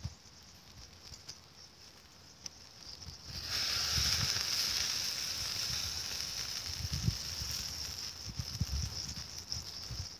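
Pork sizzling over a charcoal grill. A few seconds in a loud hiss of sizzling starts, as juices hit the hot coals and send up smoke, then slowly dies down, with a few low bumps underneath.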